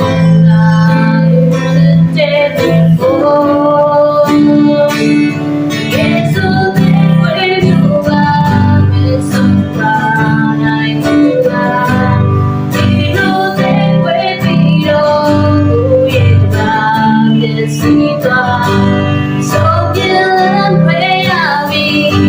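Guitar-led song accompaniment playing continuously, with a woman's singing voice in places.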